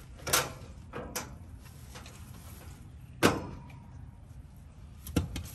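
A handful of separate knocks and clunks of parts and tools being handled at an outdoor air-conditioning condenser during a fan-motor swap. The loudest comes about three seconds in, with a short ring after it.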